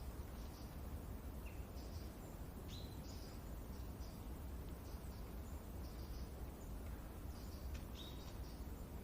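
Forest nature-sound ambience: a steady low wind rumble under birds chirping, with small clusters of short high chirps every second or so and a few brief sharper calls.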